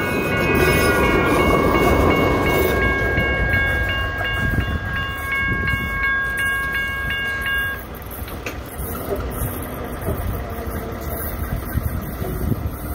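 A train passing, its horn sounding a steady multi-note chord that cuts off about eight seconds in. The low rumble and clatter of the train carry on after the horn stops.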